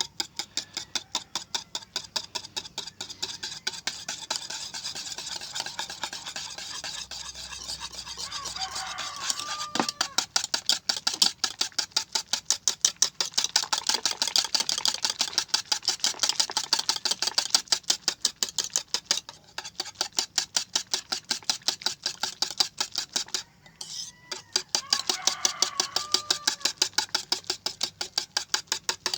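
Cream being mixed by hand in a bowl, a utensil scraping rapidly against the bowl at about four strokes a second, with brief pauses twice near the end; hand mixing because a brownout has left the electric mixer unusable.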